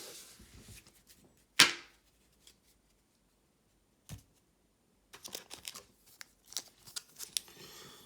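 Pokémon trading cards being handled, with light rustling and small clicks and slides of card stock. One sharp, loud tap comes about a second and a half in.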